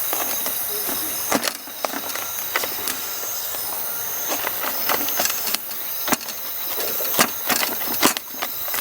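Food sizzling in a pan over a campfire, with a cooking utensil clacking against the pan about a dozen times.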